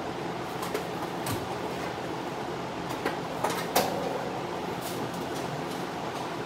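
Steady whir of a large drum fan running, with a few scattered light clicks and knocks, irregularly spaced.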